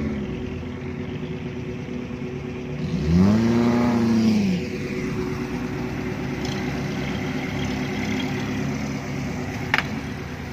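Off-road jeep engines running steadily, with one engine revved up and back down about three seconds in. A short sharp click near the end.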